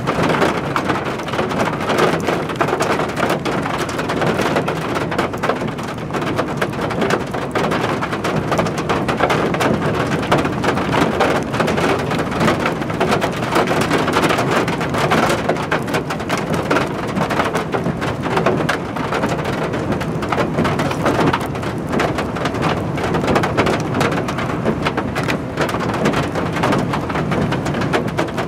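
Steady rain falling, thick with the ticks of individual drops, at an even level throughout.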